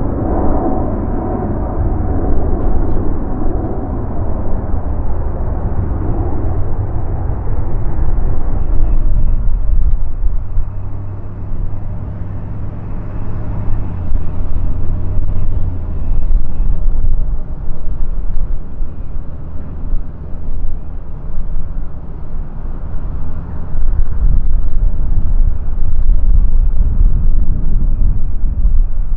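Jet airliner engines rumbling low and loud. A brighter rumble fades over the first eight seconds or so, then a steady deep rumble continues and swells again near the end.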